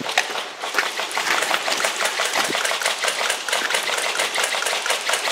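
Airsoft guns firing rapidly on full auto: a dense, fast rattle of shots that thickens about a second in.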